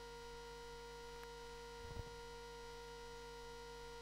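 Steady electrical hum with no speech, with a single faint low thump about two seconds in.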